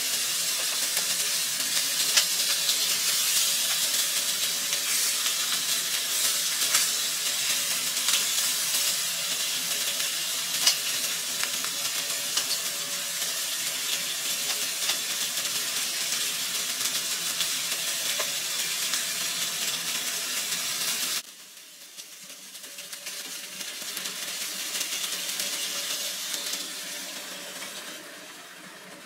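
A whole fish frying in oil in a skillet: a steady loud sizzle with scattered crackles. About two-thirds through it drops suddenly to a quieter sizzle that swells and then fades.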